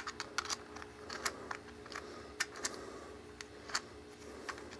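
Irregular small clicks and taps of camera-rig hardware being handled while a shoe mount adapter on a stabilizer rig is fitted and aligned, about a dozen sharp ticks over a faint steady hum.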